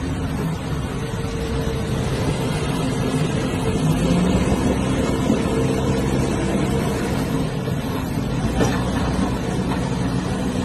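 Diesel engines of a loaded lorry and backhoe loaders running, with faint steady engine tones, under a steady wash of noise from flowing floodwater.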